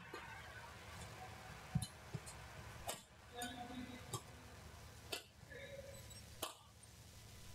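Badminton rally: rackets striking the shuttlecock several times, a second or two apart, with short squeaks of players' shoes on the court between the hits.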